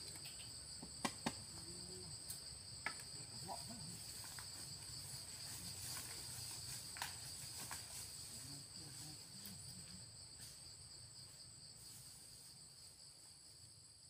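Steady chorus of insects buzzing on two high pitches, with footsteps swishing through tall grass and a few sharp twig snaps in the first half, the rustling growing fainter as the walker moves away.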